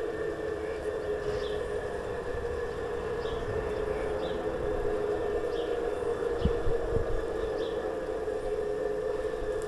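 Garden-scale model train running along the track with a steady, even drone. Short high chirps come every second or so.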